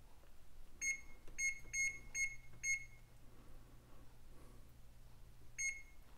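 Electric range's touch-keypad beeping as its timer is set for 10 minutes: five short identical beeps in quick succession about a second in, then one more near the end.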